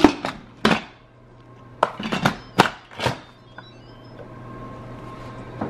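Instant Pot IP-LUX lid being set on the stainless pot and twisted shut: a run of sharp metal-and-plastic knocks and clunks over the first three seconds, then only faint handling.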